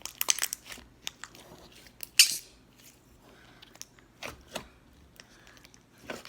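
Scattered clicks and knocks of small objects being handled and set down while clearing up a table: a quick run of clicks at the start, one sharp click about two seconds in, and a few softer knocks later.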